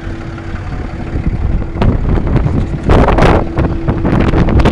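Wind buffeting the microphone with a heavy low rumble, over footsteps crunching on gravel and a faint steady machine hum underneath.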